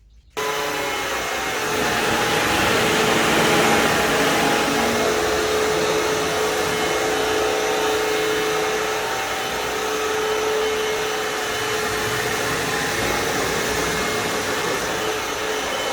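Vmai V8 Pro cordless wet-dry vacuum cleaner switching on abruptly about half a second in, then running steadily: a constant motor hum over rushing air.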